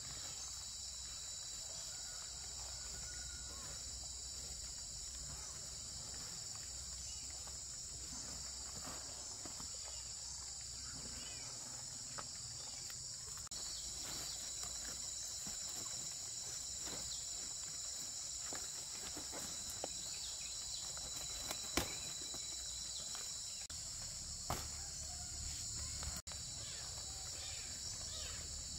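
Steady, high-pitched insect chorus, with scattered light rustles and clicks and two sharp knocks a few seconds apart about three-quarters of the way through.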